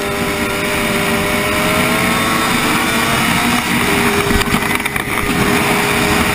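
Racing quad bike's engine running hard at speed, its pitch climbing steadily, then dropping back about three and a half seconds in before it pulls on again. A few sharp knocks come through around the five-second mark.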